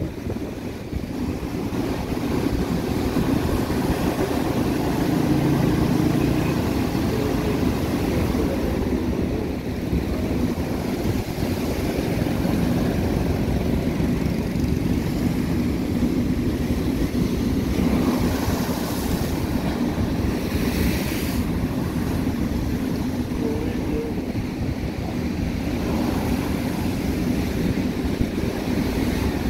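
Storm-driven sea surf breaking against the shore in strong wind: a steady low roar.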